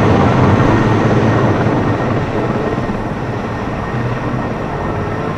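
Heavy firefighting helicopter flying low overhead: a steady, loud rush of rotor and turbine noise.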